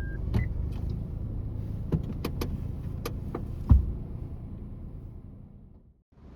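Clicks and knocks of things being handled inside a small parked car, with a louder thump a little before four seconds in, over a low steady rumble; a short electronic beep right at the start.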